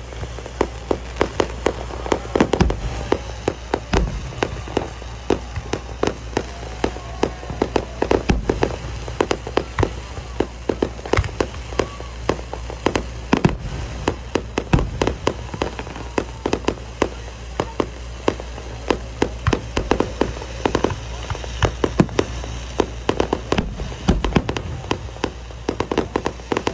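Aerial fireworks display: a dense, continuous barrage of bangs and crackling from shells bursting, several a second.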